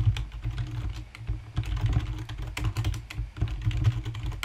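Typing on a computer keyboard: a quick, uneven run of keystrokes, with a low rumble under the clicks.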